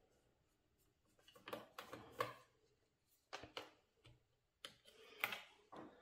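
Scattered faint clicks and scrapes of a small screwdriver and fingers working an M.2 NVMe SSD free and lifting it out of its slot in a laptop's plastic chassis, in a few short clusters through otherwise near-quiet room tone.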